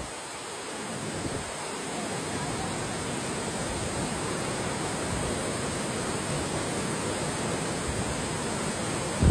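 Waterfall rushing: a steady, even roar of falling water that builds slightly over the first couple of seconds.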